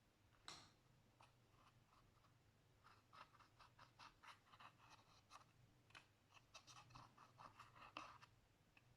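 Slime being worked by hand: one sharper click about half a second in, then from about three seconds a busy run of small, quiet clicks and crackles.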